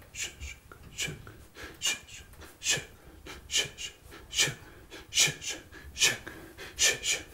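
A man making sharp, breathy puffs of air in a steady rhythm, a little more than one a second, with no voiced words.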